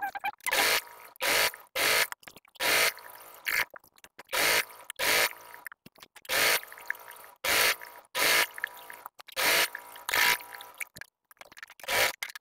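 Electric sewing machine stitching velvet trim onto fabric in short stop-start bursts, well over a dozen, each under half a second with brief pauses between.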